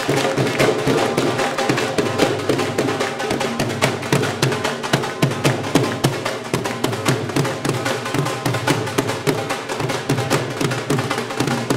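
Drum kit played together with two dhol barrel drums in a fast, driving rhythm of many strokes. The beats run unbroken throughout.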